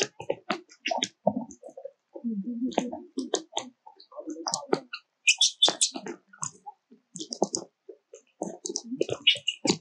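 Scattered sharp clicks and crackles at an irregular pace, with low voices murmuring in between.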